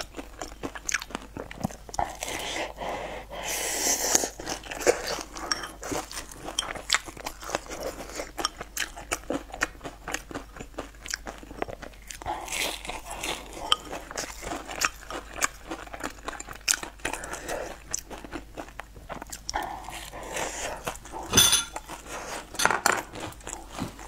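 Close-miked chewing and biting of crunchy food, with dense, irregular crisp crackles and wet mouth sounds. A single sharp knock sounds near the end.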